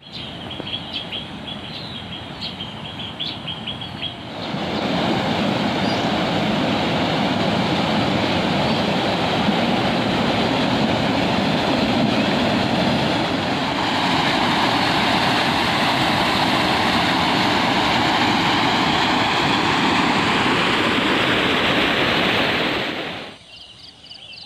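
Floodwater rushing over a small concrete weir on a swollen river: a loud, steady rush that comes in about four seconds in and cuts off shortly before the end. Before and after it, quieter ambience with a high, pulsing buzz.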